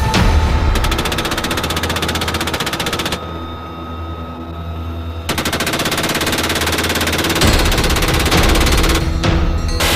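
GAU-17/M134 six-barrel minigun firing from a helicopter door mount, each burst one continuous stream of shots too fast to count. Two long bursts about two seconds apart are followed by a short burst near the end, over the steady noise of the helicopter.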